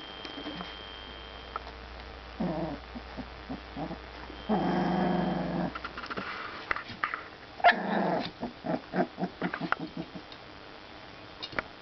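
Four-week-old puppies growling as they play-fight. There is a longer growl about five seconds in, then a quick run of short growls.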